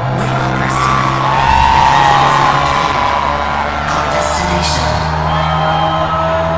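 Live electronic dance music DJ set played loud over a festival sound system, with sustained heavy bass notes that change about four and a half seconds in. Crowd whoops can be heard over the music.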